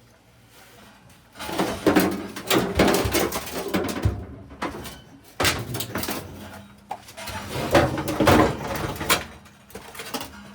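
Irregular knocking, scraping and clattering of heavy objects being handled and moved. It starts about a second and a half in and dies down near the end.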